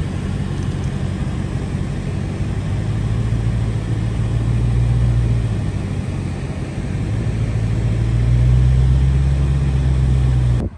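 Dodge Hellcat's supercharged V8 running steadily with a deep, even note, growing louder about seven seconds in. It cuts off suddenly just before the end.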